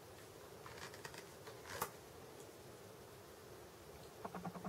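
Faint handling sounds of a small cosmetic sample tube: a few light clicks and rustles, with one sharper click a little under two seconds in, over quiet room hiss.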